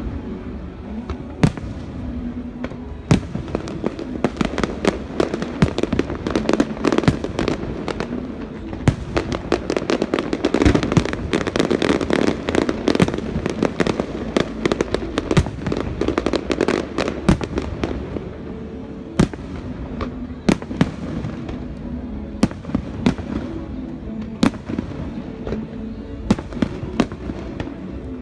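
Fireworks display: aerial shells bursting in sharp cracks, a few at a time at first, then a rapid barrage about a third of the way in, thinning out again toward the end.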